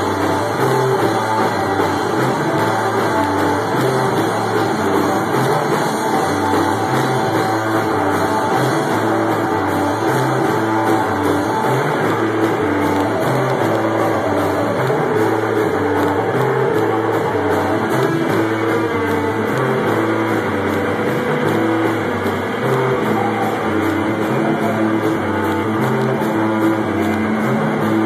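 A rock band playing live: guitar and a Premier drum kit, loud and steady.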